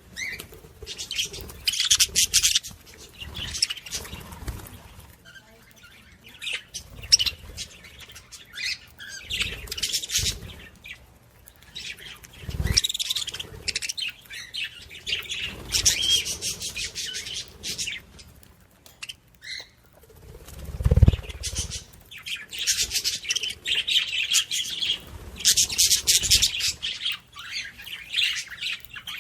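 Two pet birds in a cage chirping and chattering in repeated bursts of rapid, high notes. There are two low thumps, about 13 and 21 seconds in.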